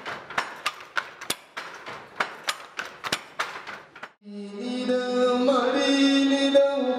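Wooden handloom clacking about three times a second as it is worked. From about four seconds in, a pena, the Manipuri bowed one-string fiddle, plays a long sustained note.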